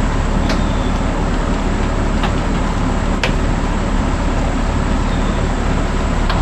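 Toyota SDK7 skid steer's engine running steadily, with a few sharp clicks about half a second, two seconds, three seconds and six seconds in.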